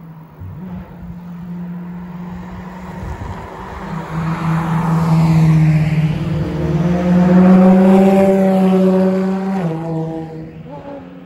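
Ferrari FXX K's naturally aspirated V12 at high revs, approaching and growing steadily louder, then dropping in pitch as the car passes close by near the end.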